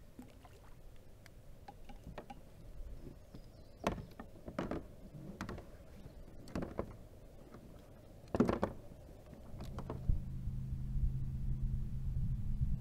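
Knocks and clunks of gear being handled against a plastic fishing kayak's hull as a landing net is lifted and stowed, several sharp ones in the middle seconds. About ten seconds in a steady low hum starts and keeps going.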